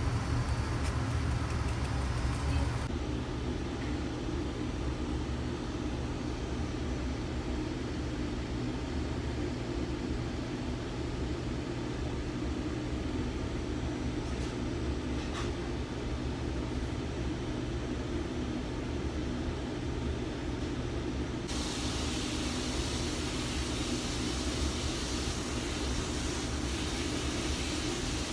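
Steady low machine hum with a background hiss. The hiss drops away about three seconds in and comes back stronger about twenty-one seconds in.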